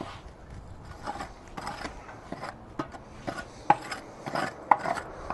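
Scraping inside a Weber charcoal kettle's steel bowl to clear out ash and spent coal: repeated rasping strokes about twice a second, with a few sharp clinks from about halfway in.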